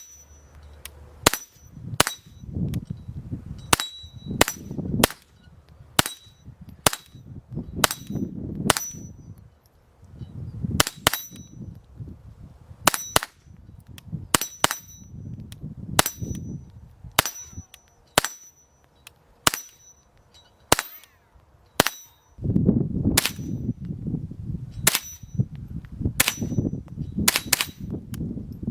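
A .22 rimfire gun firing about thirty sharp shots at an uneven pace, roughly one a second, with brief pauses between strings. Many shots carry a short, high ring after the crack.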